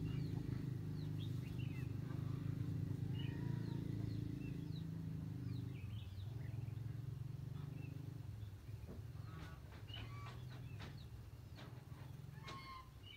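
Short bird chirps now and then over a low steady hum, which fades about two-thirds of the way through; a few sharp clicks near the end.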